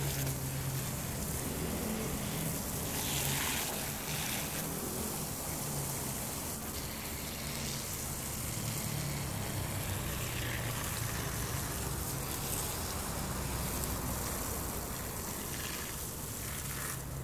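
Water from a garden hose splashing steadily onto potted plants, leaves and soil, with a low steady hum underneath.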